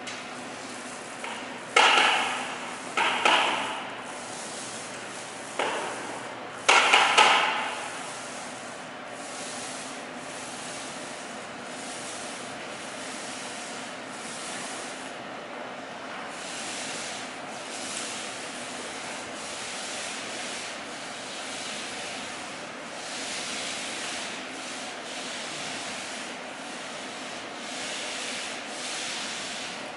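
Rubbing and scraping: four short, loud scrapes in the first seven seconds, then quieter, steady rubbing with slow swells.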